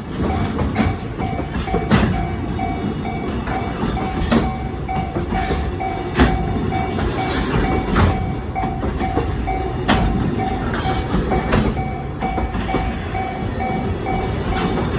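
Container freight train rumbling past a level crossing, its wheels clacking over rail joints about every two seconds. Through it the crossing's warning bell rings over and over, a steady two-tone 'kan-kan' pulse.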